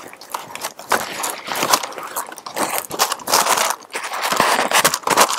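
Tissue paper rustling and crinkling in irregular bursts as a pair of mules is unwrapped and lifted out of a shoebox.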